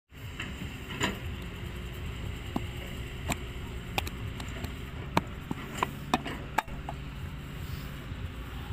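Scattered sharp slaps and taps from gloved hands working a heap of wet brick clay, over a steady low rumble.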